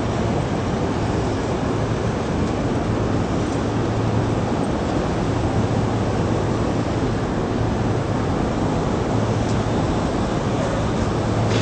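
Steady background din of a busy railway station platform: a dense, even wash of noise with a low steady hum underneath and a few faint clicks.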